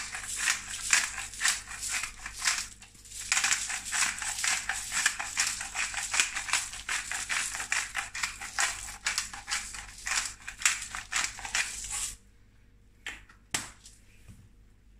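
Black pepper grinder being worked over raw chicken: a fast, dense grinding rattle with a brief break about three seconds in. It stops about twelve seconds in, followed by a couple of faint clicks.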